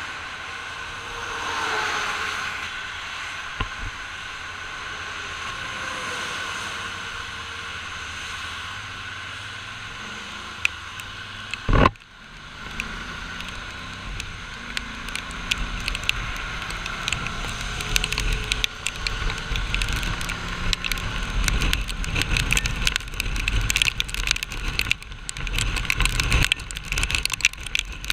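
Motorcycle riding at speed on a wet highway in rain: steady wind and tyre-spray rush over the engine. There is a swell about two seconds in, a single sharp knock near the middle, and in the second half a dense crackle of raindrops striking the camera.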